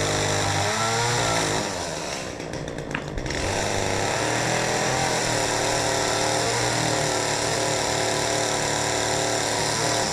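Chainsaw running at high revs while cutting into an ash trunk. It eases off about two seconds in, comes back up under load, and drops off sharply near the end as the throttle is released.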